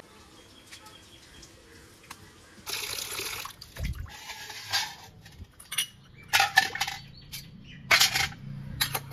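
After a quiet couple of seconds, water splashes into a large brass bowl. Small brass puja vessels then clink and slosh in the water as a hand moves them about, in a run of short sharp knocks and splashes.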